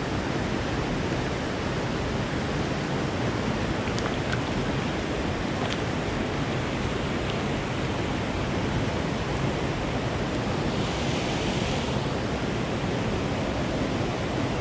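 Steady rush of a fast, shallow stream riffling over rocks right at the microphone.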